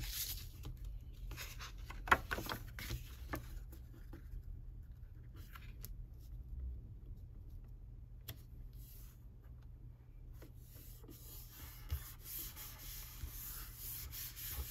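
Cardstock being handled: a stamped paper panel slid into place on a card base and rubbed down flat by hand, with soft scraping and rustling and a few light clicks, the sharpest about two seconds in.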